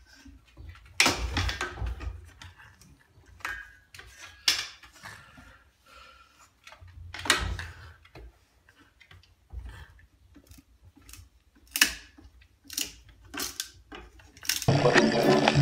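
Scattered clicks, taps and a few dull knocks as a French bulldog tugs and chews on a stick over bare wooden floorboards. Music comes in near the end.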